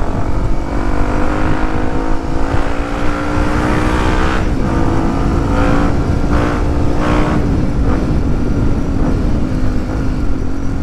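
Yamaha WR155R's single-cylinder 155 cc engine running through a Proliner XR-1 aftermarket exhaust while the bike is ridden. The note rises gently for about four seconds, dips a little, then holds fairly steady with a few small drops. Wind rumbles on the microphone underneath.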